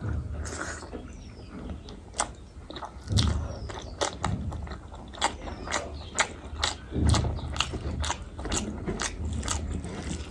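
Close-miked chewing with wet mouth clicks and smacks, two or three a second.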